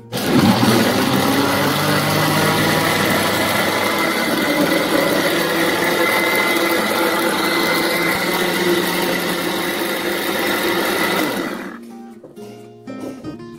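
Electric blender running at full speed, blending guava with water. The motor spins up with a rising whine at the start, runs steadily for about twelve seconds, then cuts off near the end.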